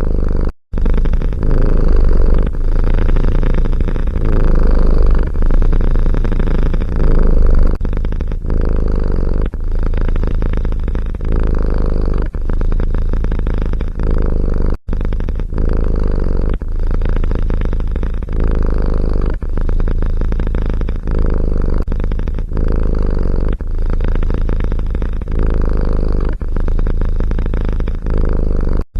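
Domestic cat purring loudly and steadily, close to the microphone, with brief gaps about half a second in and near the middle.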